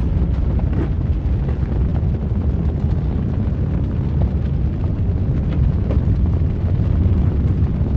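Volcanic lava sound effect: a steady, deep rumble with dense fine crackling over it.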